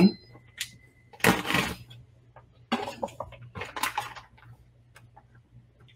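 Rustling, crinkling packaging in three or four short bursts with a few light clicks and knocks, as a package of salmon is cut open and handled; the loudest burst comes about a second in.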